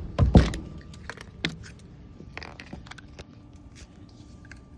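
Small toys and their packaging being handled: a couple of thumps right at the start, then scattered light clicks and rustles.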